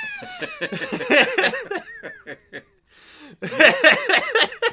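Laughter: a run of quick, repeated ha-ha bursts, a short lull about two and a half seconds in, then another burst of laughing near the end.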